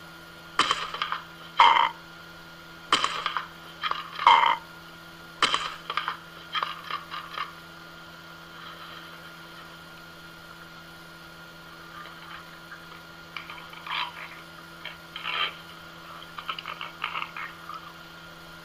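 Amazon parrot calling in a series of short, sharp squawks, several loud ones in the first few seconds, a pause in the middle, then softer clusters of calls near the end.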